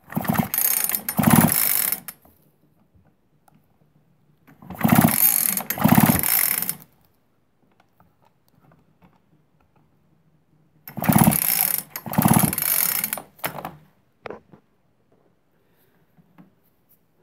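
Poulan Pro 42cc chainsaw pull-started three times by its recoil starter cord, each pull about two seconds long. With the spark plug out and held grounded on the cylinder for a spark check, the engine turns over without starting.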